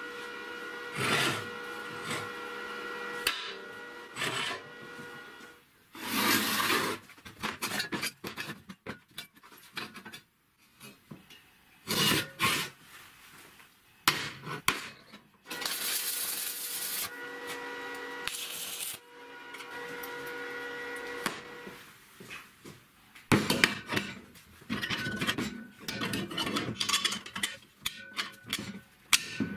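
Steel workshop work: several separate scraping bursts like filing or grinding on steel, then a quick run of clanks and clicks as steel frame parts are handled and fitted together near the end.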